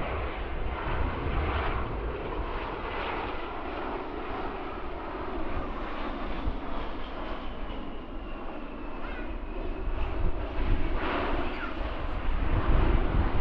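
Jet engines of a South African Airways Airbus A320-family airliner as it touches down and rolls out on the runway: a steady rushing sound with a faint falling whine about halfway through, growing louder near the end.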